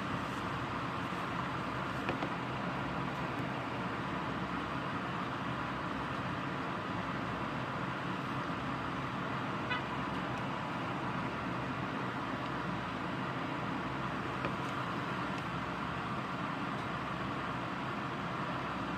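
Steady rain falling during a thunderstorm, an even hiss with a few faint ticks and a low steady hum underneath.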